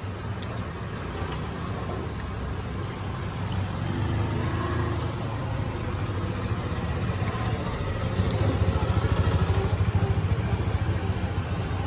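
A motor vehicle engine running nearby, a steady low rumble that grows louder about two-thirds of the way through.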